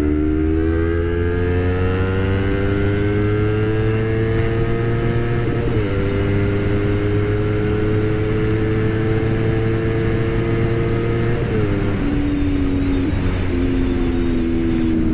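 Honda CBR250RR's parallel-twin engine accelerating hard, its pitch climbing steadily, with an upshift about six seconds in and another about twelve seconds in, over steady wind rush.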